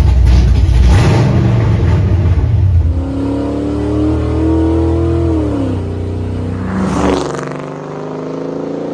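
V8 engine running with a heavy low rumble, then revving: the pitch climbs slowly and falls away, with a short sharp burst of revs near the end.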